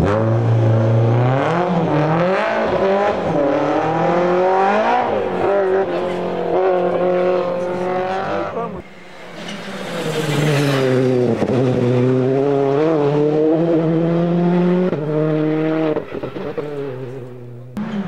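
Rally car engines at hard throttle, pitch climbing and dropping with each gear change and lift: a BMW E30 rally car accelerates away, then after a cut about nine seconds in, another rally car revs up and down.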